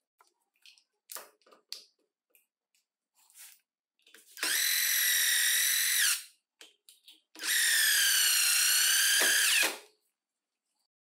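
Restored National EZ6505 cordless impact driver triggered twice, each time for about two seconds: the motor spins up to a steady high whine and winds down, running free without hammering. A few light clicks of handling come first.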